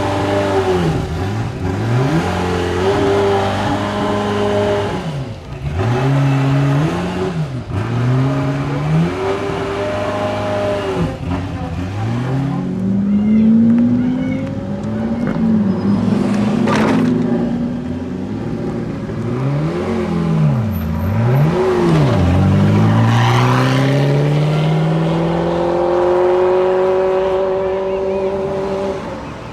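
Ferrari F40 LM's twin-turbo V8 accelerating hard through the gears, its pitch climbing and then dropping sharply at each upshift, again and again, with one long climb near the end.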